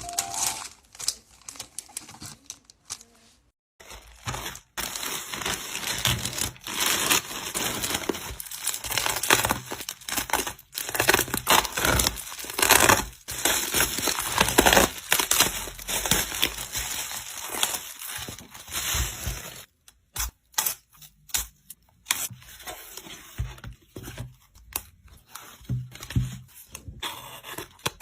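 Packaging being crinkled, rustled and torn open by hand in close-up, in irregular bursts with a couple of short pauses.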